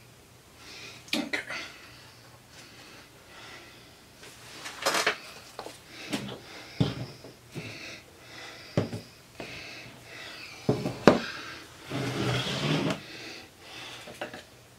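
Plastic mixing jugs and a wooden-boxed soap loaf mold being moved about and set down on a tabletop: scattered knocks and clunks, the sharpest about eleven seconds in, with a longer scraping rustle just after.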